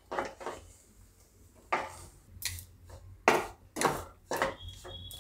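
A spatula scraping and turning a thick, crumbly mix of gram flour and onions in a nonstick pan, in about eight separate, unevenly spaced strokes. The besan is being dry-roasted to cook out its raw taste.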